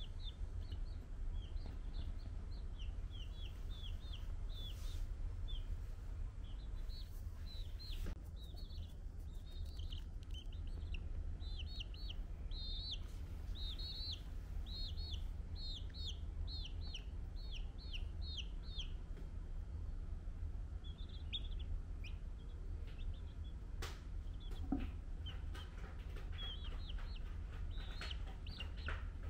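Baby chick peeping: runs of short, high-pitched peeps, about two or three a second, with a pause of a couple of seconds in the middle.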